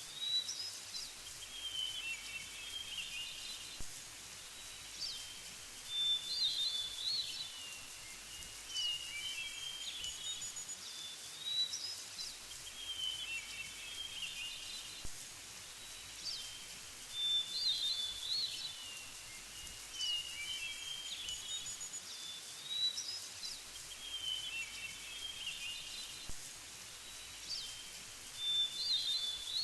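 Small birds chirping and singing in short, high calls, the same cluster of calls recurring about every five to six seconds over a faint steady background hiss.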